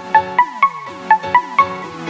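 Electronic background music: plucked, bell-like synth notes in a steady rhythm of about four a second over a low falling bass beat.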